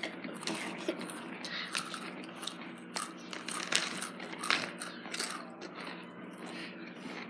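Hot Cheetos being bitten and chewed: a run of irregular crisp crunches.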